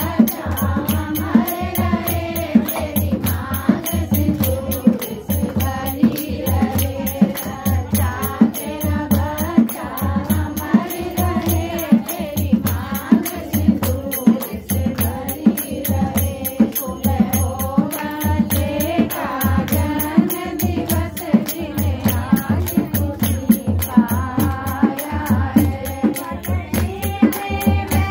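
A group of women singing a badhai geet, a traditional congratulatory folk song, together in unison, clapping their hands to a steady beat.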